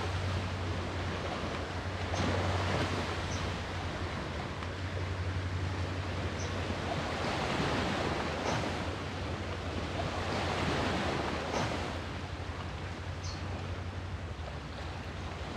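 Sea waves washing ashore, the surf swelling and easing every few seconds over a steady low rumble, with short faint high chirps now and then.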